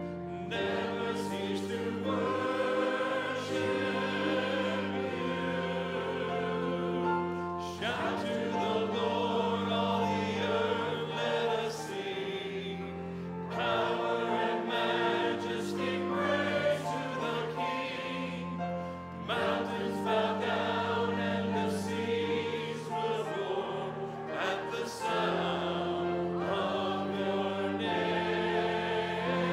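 Church choir and standing congregation singing a worship song together, with piano accompaniment, in sung phrases with brief breaths between them.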